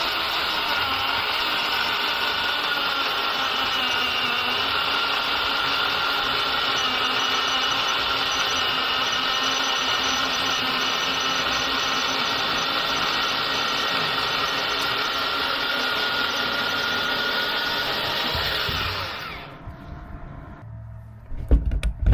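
Worx electric chainsaw running and cutting through a maple log, its motor and chain holding a steady pitch without bogging down for about nineteen seconds, then stopping. A few low thumps follow near the end.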